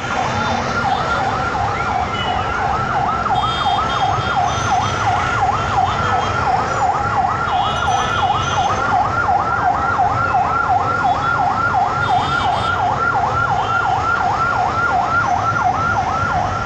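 A vehicle siren in a fast yelp, rising and falling about three times a second without a break, over steady street traffic noise.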